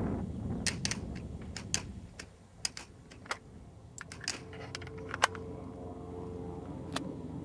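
Irregular light clicks and taps, about a dozen, with one sharper click about five seconds in.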